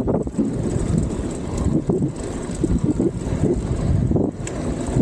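Wind buffeting the action camera's microphone along with the rolling hum of mountain-bike tyres on asphalt as the bike rides along the road. The noise is a steady, fluttering rumble.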